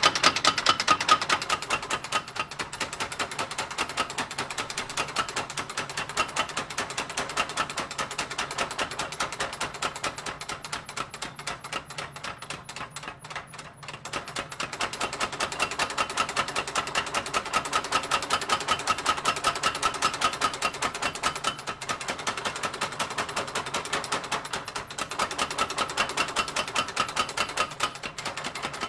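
Rapid, even mechanical clatter of forge-shop machinery at several beats a second, running while steel is heated in the forge fire. It dips briefly about halfway through, then picks up again.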